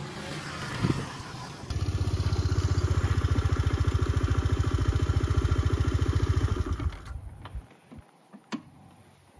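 An engine running with an even, fast pulse, coming in abruptly under two seconds in and stopping about seven seconds in, followed by a few sharp clicks.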